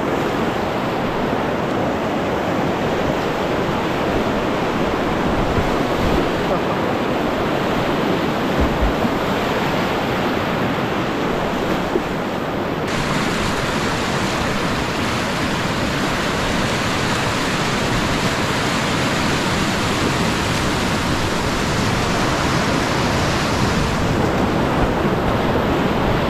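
Steady rush of whitewater rapids, loud and even, changing abruptly to a brighter hiss about halfway through.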